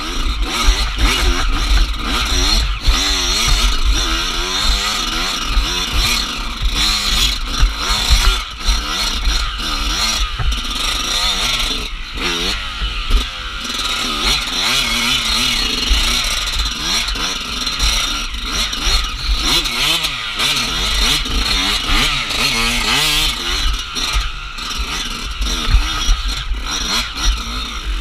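Dirt bike engine revving up and down over and over as the throttle is worked, heard from on the bike, with a low wind rumble on the microphone and the chassis clattering over bumps.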